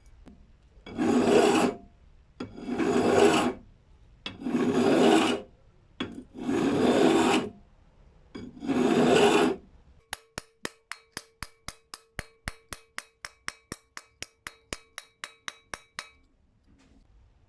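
Five slow strokes of hand filing on a knife's steel, each about a second long and roughly two seconds apart. They are followed by about six seconds of sharp, even ticking, about four ticks a second, over a faint steady hum, which stops suddenly.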